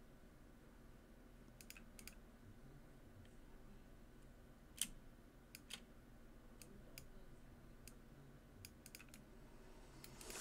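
Faint, scattered computer mouse clicks, a dozen or so, some in quick pairs, over quiet room tone; the loudest comes about halfway through.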